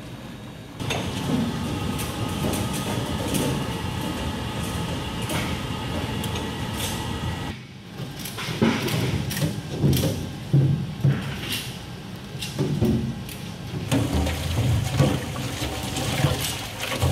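Water churning and sloshing in a stainless steel sink of ice water as a mesh basket of shelled peas is plunged and swirled, with irregular splashes. Before that, a steady rushing noise with a faint hum runs for several seconds.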